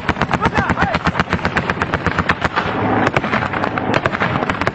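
Rapid automatic gunfire from a machine gun, about ten shots a second, breaking into less regular shots after about two and a half seconds.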